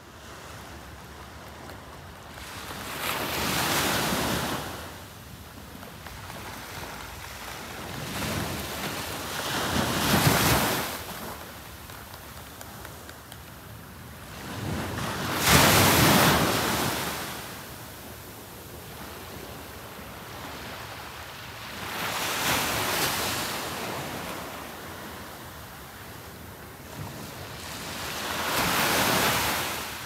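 Ocean waves breaking on a sandy beach: five slow rushes of surf, about six and a half seconds apart, each swelling up and dying away over a steady hiss. The third, about halfway through, is the loudest.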